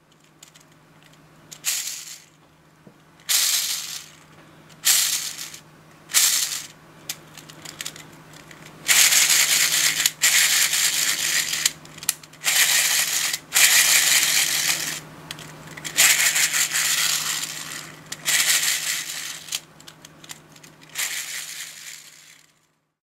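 3D-printed plastic bevel gear fidget spinner flicked by hand, its interlocking plastic gears rattling as the teeth mesh; each spin starts loud and fades as it slows. A few short spins come first, then longer runs of one to two seconds each.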